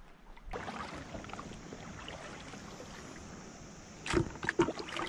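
Shallow rock-pool water sloshing faintly as a person moves through it, then several sharper, louder splashes about four seconds in.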